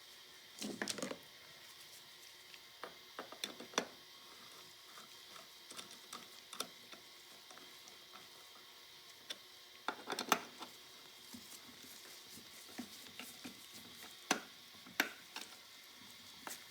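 Small metal motor parts clicking and clinking as they are handled and fitted by hand: scattered light taps in short clusters, with the loudest bunches about a second in and about ten seconds in.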